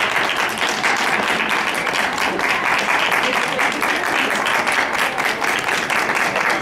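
Audience applauding: a dense, steady run of many hand claps, with a few voices under it.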